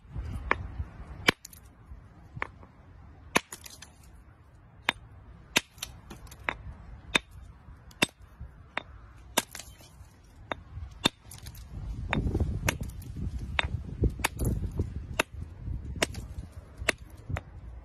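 Geological pick hammer tapping a rounded stone nodule held in the hand: sharp metal-on-stone knocks, about one to two a second, working a crack along the nodule to split it open for the ammonite fossil inside.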